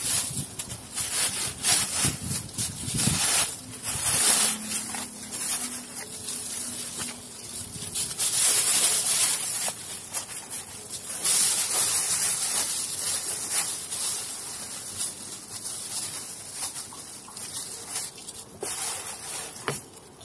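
Thin plastic shopping bag rustling and crinkling unevenly as it is handled, wrapped and tied in a knot.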